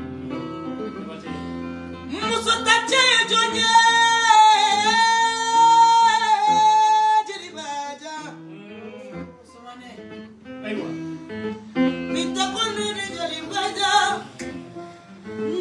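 An acoustic guitar picks a repeating melody while a woman sings in griot praise style. She holds one long, loud note with vibrato from about two and a half to seven seconds in, and sings another phrase near the end.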